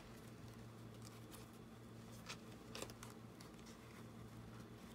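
Near silence with a faint low hum, broken by a few faint ticks and rustles of hands pinning a beaded dangle through a paper junk journal.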